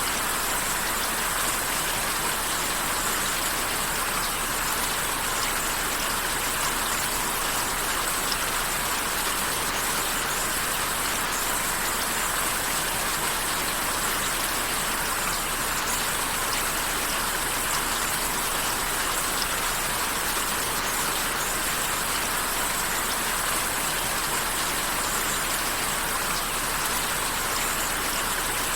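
Steady rain falling, an even, unbroken patter of drops with no change in strength.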